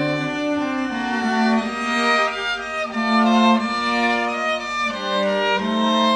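Background music of slow bowed strings, violin and cello, playing long held notes that change every second or so.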